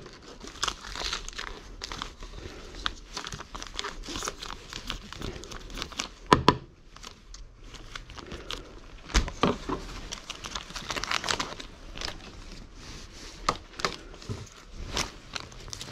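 Foil cat-food pouch crinkling and rustling as a knife scrapes wet food out of it onto a wooden board, in quick, irregular clicks, with a few sharper knocks, the loudest about six and nine seconds in.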